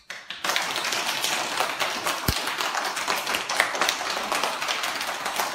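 A group of young children clapping their hands together. The clapping starts about half a second in and keeps up steadily.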